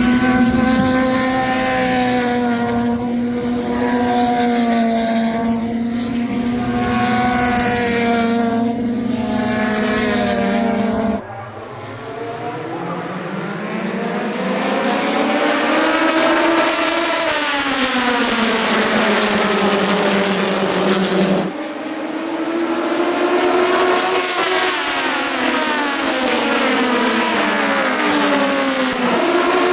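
Race car engines running on an oval track. A steady engine note for about ten seconds, then a sudden change to a pitch that climbs and falls away as cars go by, then another sudden change about two-thirds of the way in to a similar engine drone.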